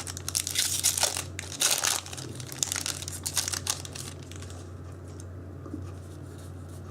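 A foil Yu-Gi-Oh booster pack being torn open and its wrapper crinkled, a run of crackling that is loudest about two seconds in and dies away by about four seconds.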